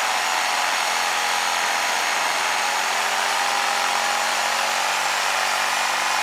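Electric jigsaw running steadily as it cuts into a wooden log, with a steady motor whine over the rasp of the blade. Its blade has just been re-tightened in its clamp screws after working loose.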